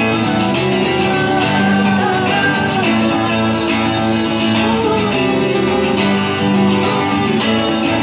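Two Stratocaster-style electric guitars played together through small amplifiers, a continuous instrumental passage of a song at an even, fairly loud level.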